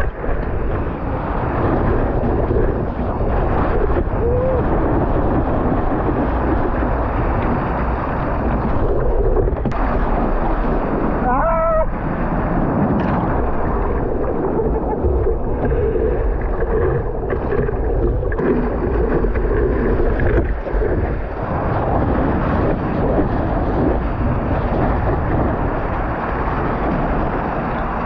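Whitewater rushing and splashing against a surfboard's nose as it rides through the surf, heard at a board-mounted camera, with wind buffeting the microphone. A brief rising, warbling pitched sound cuts through near the middle.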